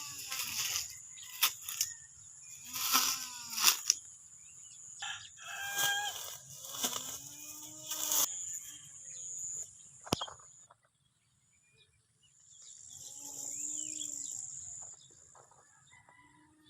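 Roosters crowing several times, each a long arching call, with a few sharp clicks or knocks between the crows.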